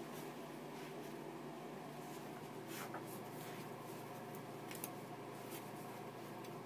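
Faint scratchy rustling and scuffing of a wet dog rubbing and rolling its fur on a bath mat and towel to dry itself, with a few soft clicks, over a steady low hum.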